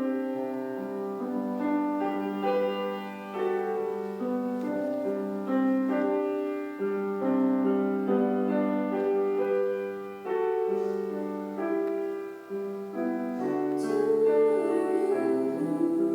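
Piano playing a slow melody over held chords, with notes changing about once a second; a wavering higher line joins near the end.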